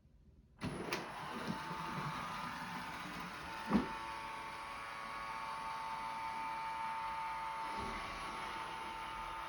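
Roomba robot vacuum's motor and brushes starting up about half a second in, then running steadily with a high whine, and a single knock a few seconds later.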